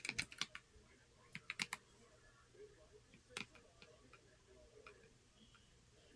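Keystrokes on a Corne split mechanical keyboard: a quick run of clicks at the start, another short run about a second and a half in, one louder keystroke a little past three seconds, then only a few scattered faint taps.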